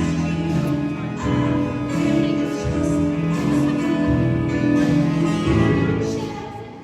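Live band music during a sound check: guitar with a singing voice, getting quieter near the end.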